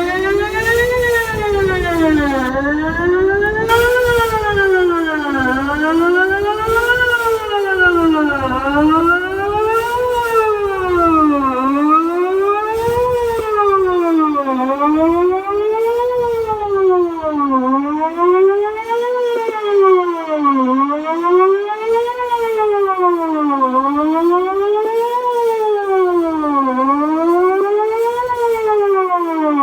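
Outdoor emergency warning siren sounding a wail during a test. It rises and falls smoothly, about once every three seconds.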